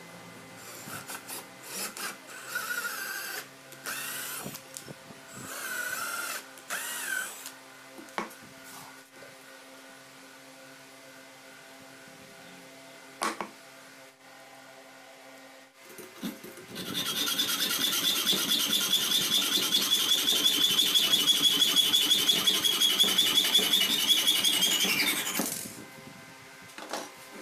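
A cordless drill motor revs in several short bursts, rising and falling in pitch. Later a louder power-tool motor runs steadily at high speed with a fast rattle for about eight seconds, then winds down.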